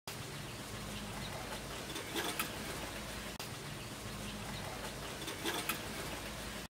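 Outdoor background noise with a steady low hum and faint hiss, broken twice by a brief cluster of faint chirps and clicks. It cuts off just before the end.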